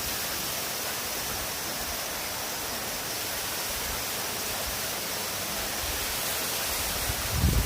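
Waterfall rushing, a steady even hiss of falling water. Near the end comes a short low rumble.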